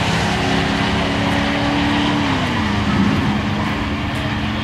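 Two bracket drag cars, a 1971 Chevy pickup and a Chevelle, running down the drag strip under power. One engine's steady note slides down in pitch about two seconds in.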